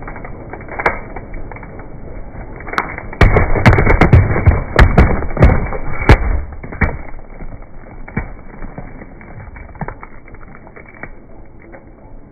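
Small pumpkin crushed under a slowly rolling car tyre: after a low rumble, about three seconds in it breaks up in a rapid run of loud cracks and crunching snaps lasting some three seconds, then a few fainter cracks as the wheel settles.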